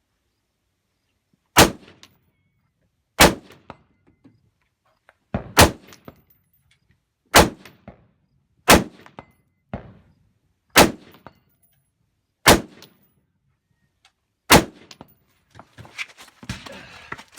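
AR-15 rifle shots fired one at a time at a slow, steady pace: about nine shots, roughly one every one and a half to two seconds, each sharp with a short ringing tail. A brief scuffing noise follows near the end.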